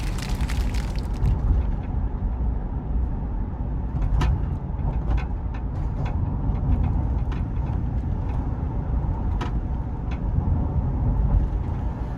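Mazda CX-5 driving on the road: steady road and engine noise, with a few short sharp clicks or ticks scattered through it.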